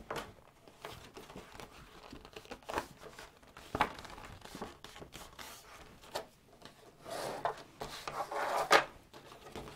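A large sheet of stiff cardstock rustling and crinkling as it is lifted, turned over and folded, with scattered light taps against a plastic scoring board, and a longer, louder scraping rustle near the end as the card is slid and scored on the board.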